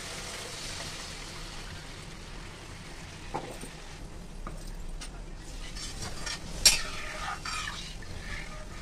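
Hot masala sizzling in a metal kadhai as water is added, then a steel spoon stirring and scraping against the pan, with one loud clink about three-quarters of the way in.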